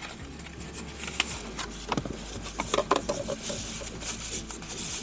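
Paper packaging handled: a cardboard box's flaps opened and tissue paper crinkling and rustling as a wrapped shift knob is pulled out, with irregular crackles and small clicks.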